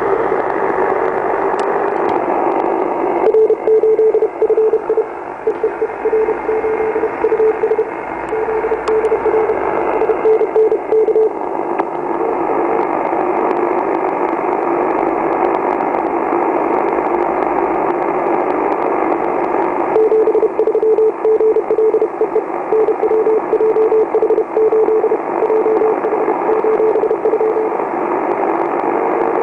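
Shortwave receiver audio: a dense hiss and buzz of power-line noise through the receiver's narrow filter. A Morse code signal tone is keyed on and off through it from about three seconds in to about twelve seconds, and again from about twenty seconds on.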